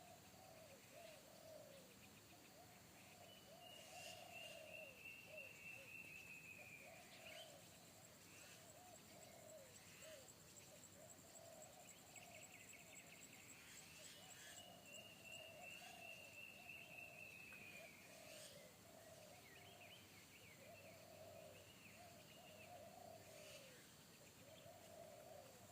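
Faint outdoor bird calls: short low calls repeat throughout, with two long falling whistles, and a steady high insect buzz through the middle.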